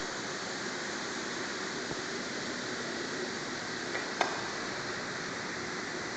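Steady hissing background noise, with a couple of faint clicks about four seconds in.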